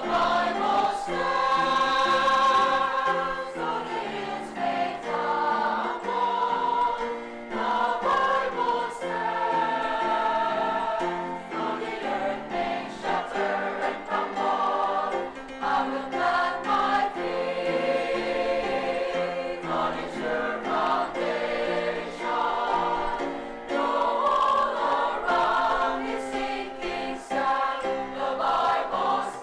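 A choir singing music with sustained notes and chord changes every second or two.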